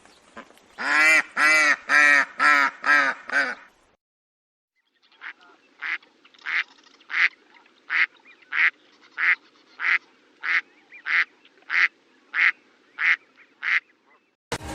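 Ducks quacking: a fast run of about seven loud quacks, then after a short pause a steady series of shorter, quieter quacks, about one every two-thirds of a second, over a faint steady hum.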